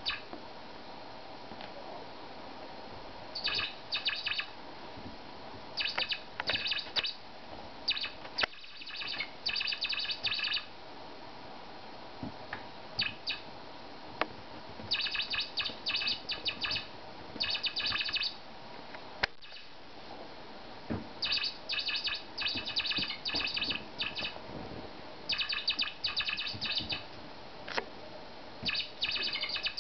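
A squeaky toy mouse giving off clusters of rapid, high, chirp-like squeaks again and again as a kitten plays with it, with short pauses between the clusters.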